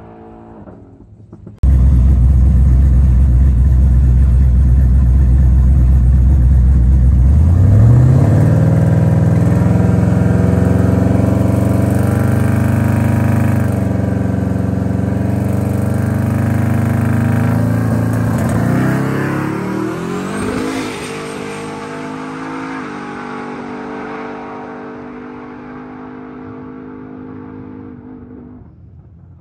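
Twin-turbo Chevrolet Silverado pickup's engine at the start line. It comes in suddenly, running low and loud, revs up and holds about a quarter of the way in, then revs higher for a drag-racing launch about two-thirds of the way through. After the launch it fades steadily as the truck pulls away down the track.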